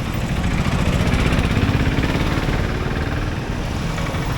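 A motor vehicle engine running close by in street traffic, swelling louder between about one and two seconds in and then easing off.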